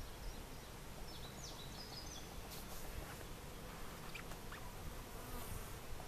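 Honey bees buzzing steadily around an opened hive, from a colony the keeper finds a little hot (defensive).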